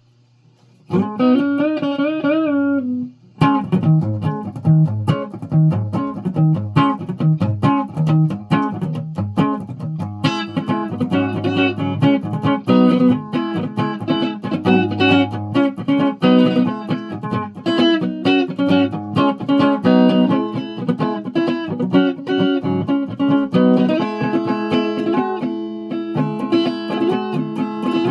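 Guitar being played: a held note with wavering pitch about a second in, then a long run of quickly plucked single notes.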